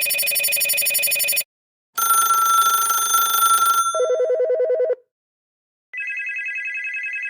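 Phone ringtones played one after another, each a fast trilling ring. The first stops after about a second and a half; after a short pause a second one starts and drops to a lower warbling trill about two seconds later; after another pause a higher trilling ring begins near the end.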